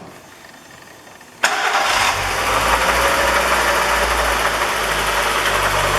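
Volkswagen Saveiro 1.6 AP flex engine starting abruptly about a second and a half in and then idling with a loud, rough noise over the engine sound. The noise comes from the accessory belt drive: a water pump bearing with heavy play and a worn bearing in the belt tensioner.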